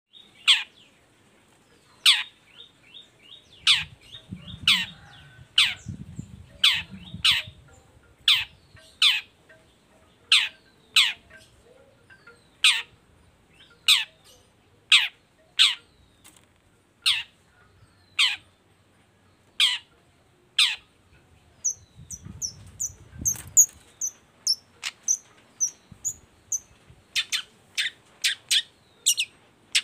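Long-tailed shrike calling: sharp, steeply falling calls about once a second. About two-thirds of the way through it switches to quicker, higher short notes, then speeds up into a fast run of falling calls near the end.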